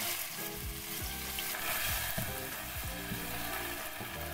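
Chopped kimchi sizzling in hot oil in a non-stick frying pan as it is stir-fried with a wooden spatula.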